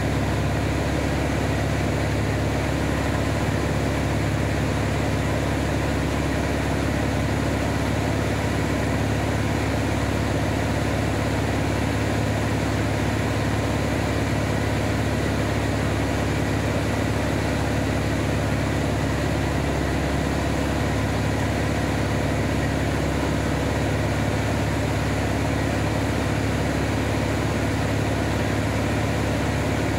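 Van's RV-7A light aircraft's piston engine and propeller droning steadily in flight, an even hum of several pitches with a hiss over it.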